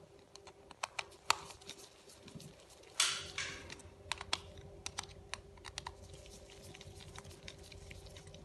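A small screwdriver working the tiny screws out of a manual micropipette's plastic head gives scattered light clicks and ticks of metal on screw and plastic. There is one louder brief scrape about three seconds in.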